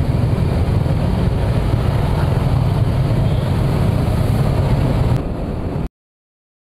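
Motorbike engine running with wind noise on the microphone while riding slowly through traffic. The sound drops in level about five seconds in and cuts off to dead silence near the end.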